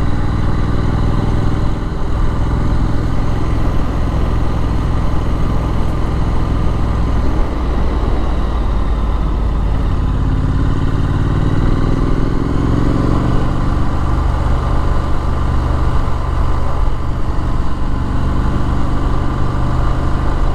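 Triumph Street Scrambler's 900 cc parallel-twin engine running as the motorcycle is ridden, the engine note climbing under acceleration about ten seconds in.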